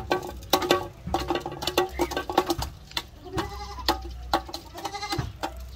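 Farm animals calling in short, bleat-like cries among many sharp clicks, over background music.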